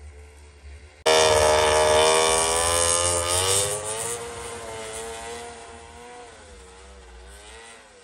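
Snowmobile engine revving as it pulls away, its pitch wavering up and down with the throttle. It comes in suddenly and loud about a second in, then fades over the following seconds.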